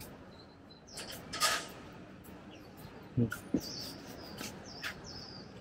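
Small birds chirping in short, high notes that come in quick runs, with a sharper, louder sound about one and a half seconds in.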